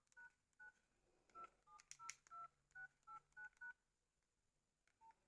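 Nokia 2323c keypad tones: faint two-tone dialing beeps as keys are pressed, about a dozen in quick succession over the first three and a half seconds, then one more near the end.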